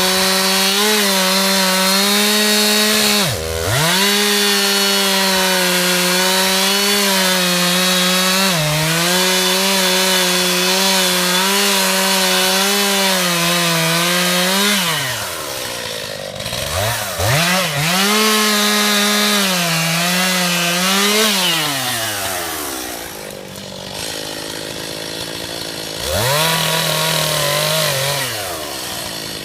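Stihl MS291 two-stroke chainsaw cutting wood at full throttle, its pitch sagging slightly as the chain takes load. The engine drops off throttle and revs back up about halfway through, again around two-thirds of the way through, and near the end.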